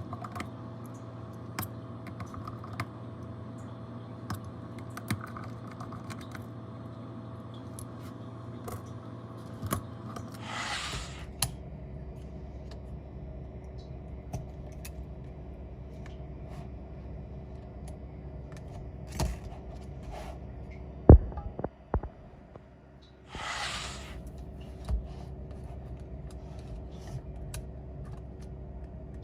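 Light, scattered clicks and taps of small tools being handled, over a steady hum whose pitch shifts about a third of the way in. There are two short hisses, and a quick run of sharper, louder clicks about two-thirds of the way through.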